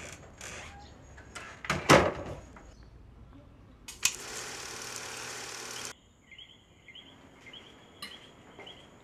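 Vintage 8mm film projector: its selector knob clicks several times, loudest about two seconds in. Then the motor runs with a steady whirr for about two seconds and cuts off suddenly. Faint, evenly repeating chirps follow.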